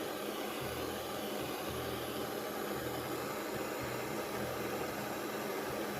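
Silversmith's gas soldering torch burning with a steady hiss of the flame.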